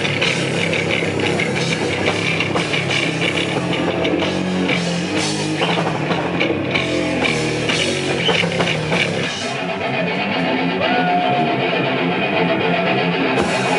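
Heavy metal band playing live: distorted electric guitars with drum kit. The riff changes about nine and a half seconds in.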